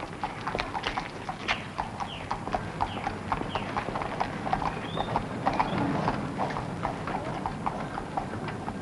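Irregular clopping footfalls on hard paving: many sharp knocks a few per second, with no break.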